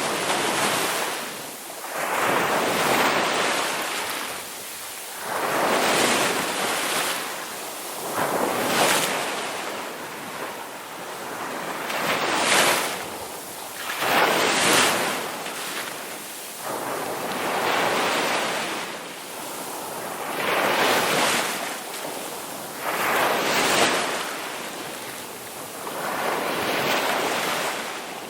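Sea waves breaking on a beach: surf hissing and washing in, swelling and falling again about every two to three seconds.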